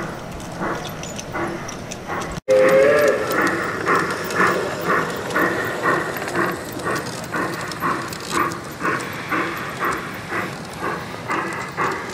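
Onboard sound of a large-scale garden-railway model train: a short whistle blast about two and a half seconds in, over a steady rhythmic beat of about two a second.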